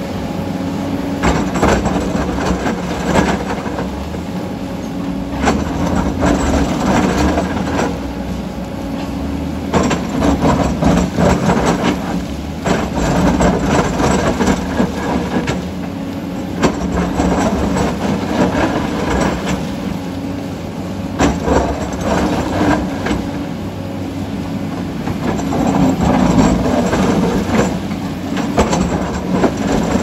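Crawler excavator's diesel engine running steadily under load while its bucket digs and scrapes into broken rock, with repeated irregular knocks and clatter of stone against steel.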